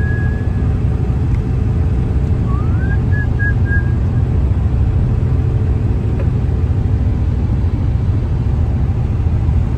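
Steady low road and engine rumble inside a moving car's cabin. About two and a half seconds in, a short rising whistle-like tone levels off into a few brief high notes.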